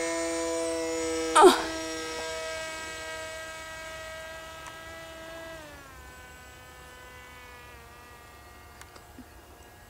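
Brushless motors of a small radio-controlled aircraft buzzing overhead, the pitch dropping in two steps about halfway through and again near the end as the throttle comes down for landing, and the buzz fading. A brief loud rush of noise about one and a half seconds in.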